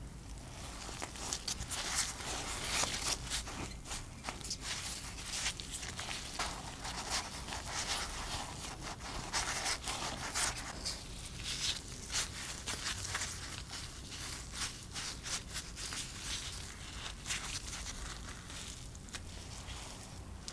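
Close, irregular crisp crackling and tearing of flatbread being handled, many short sharp crackles following one another throughout.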